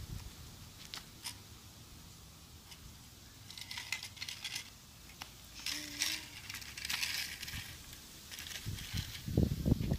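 Dry dirt and small gravel scraped and crunched as a child plays on the ground with a plastic toy truck, in scattered scratchy bursts. Heavier thumps and rustling come near the end.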